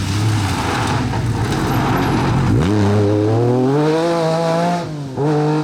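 MG Metro 6R4 rally car's V6 engine running under load. The note dips briefly about two and a half seconds in, then revs climb steadily for about two seconds before falling away, with a short blip of throttle near the end.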